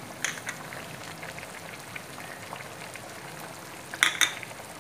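Vermicelli simmering in water in a metal pot, bubbling steadily with small pops and crackles. A brief sharp clatter about four seconds in.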